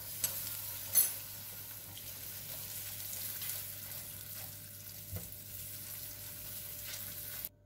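Butter sizzling in hot caramelised sugar in a frying pan as a silicone spatula stirs it in, a steady hiss with two sharp clicks in the first second. It cuts off suddenly just before the end.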